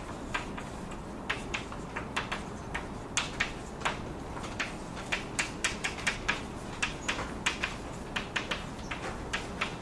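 A quick, irregular series of light, sharp clicks and taps, two to four a second, over a steady room hum.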